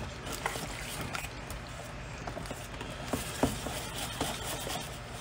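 Wire whisk stirring a thin flour-and-cornmeal batter in a stainless steel bowl: a soft, wet stirring with light clicks of the wires against the metal, and a few sharper taps scattered through it.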